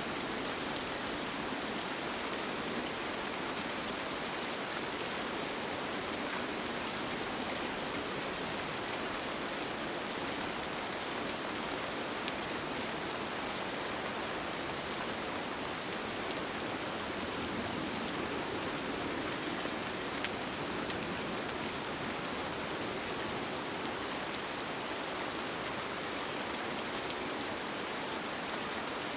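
Steady rain falling on a tent, an even hiss with a few single drops tapping now and then.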